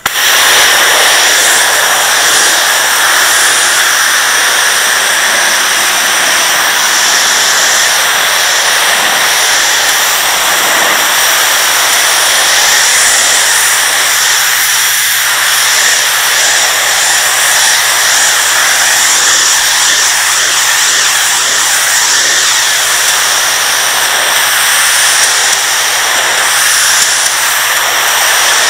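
Pressure washer jet spraying water onto porcelain patio slabs: a loud, steady hiss that cuts in suddenly and runs on evenly, with a faint low hum of the machine underneath.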